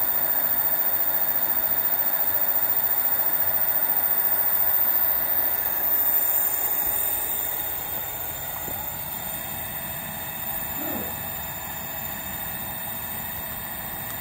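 Direct-drive brushless front hub motor spinning a 20-inch wheel: a steady whirring hum with faint high steady tones, dropping in level about six seconds in.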